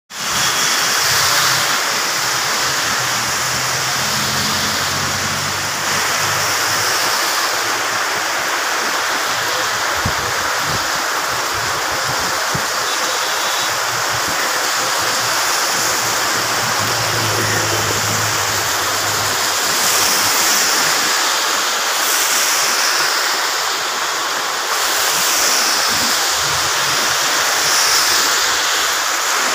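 Heavy rain pouring steadily onto a road and roofing. Now and then a passing vehicle adds a low engine hum and the hiss of tyres through standing water, several times in the second half.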